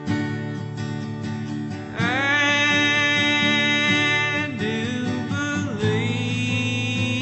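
A song: acoustic guitar strumming under a sung voice that slides up into long held notes, about two seconds in and again near six seconds.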